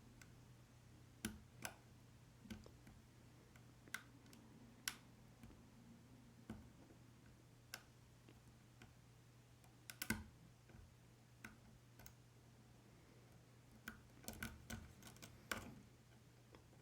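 Faint, irregular metallic clicks and ticks of a shallow hook pick working the pin stacks of a Yale 500 lock under light tension, with a quick run of clicks near the end.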